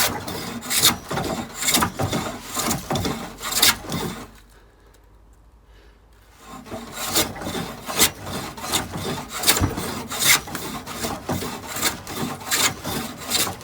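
Hand plane shaving a pine board in repeated quick strokes, pausing for about two seconds partway through before the strokes start again.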